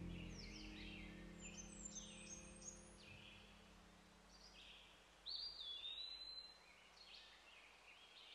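Faint bird chirps and calls, with one longer, slightly falling whistle about five seconds in, over the low end of background music that fades out over the first three seconds.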